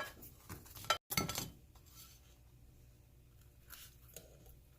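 Kitchen utensils and dishes clinking, a few light clinks in the first second and a half, then a faint steady low hum.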